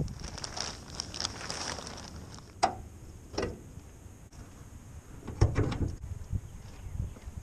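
Handling sounds at an old Citroen DS: a plastic cover rustling, then two sharp metal clicks, one with a short squeak, as the bonnet is raised, and a heavier thump a little past halfway.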